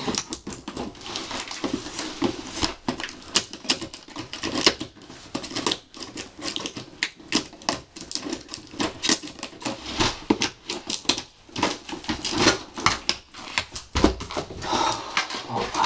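Scissors snipping and scraping as they cut open a cardboard shoebox, heard as a dense, irregular run of quick clicks and crackles. Near the end, cardboard and packaging rustle as the box is opened.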